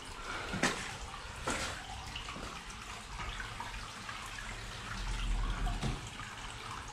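Small stream trickling and dripping over the cobbled floor of a storm water tunnel, with two sharp knocks about half a second and a second and a half in, and a low rumble about five seconds in.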